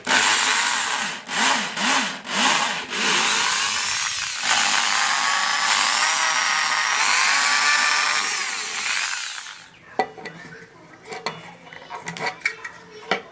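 Electric drill boring small pilot holes into an MDF speaker panel for the terminal-cup screws. It starts with a few short bursts, then runs steadily for about six seconds with the motor whine rising and falling, and stops a little before the end. A few light clicks and knocks follow.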